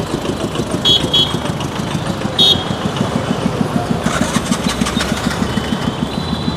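Street traffic dominated by a motor vehicle engine running close by with a fast, even chugging pulse. Short horn beeps sound twice about a second in and once more about two and a half seconds in.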